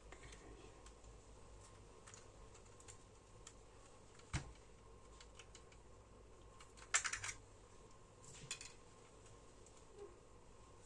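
Faint plastic clicks and taps from handling and prying at the housing of Eachine EV300O FPV goggles being taken apart, with a single sharp knock about four seconds in and a short clatter of clicks about seven seconds in.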